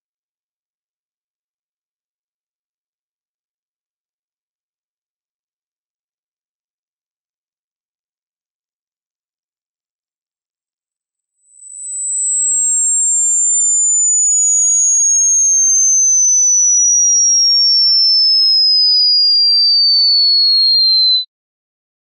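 Pure sine test tone for a high-frequency hearing test, starting very high and sliding slowly and steadily down in pitch from about 13,000 Hz to 4,000 Hz, then cutting off suddenly near the end.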